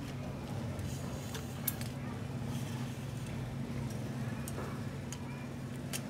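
A few scattered light clicks and ticks from tools and bike parts being handled during brake cable work, with one sharper click about a second and a half in, over a steady low hum.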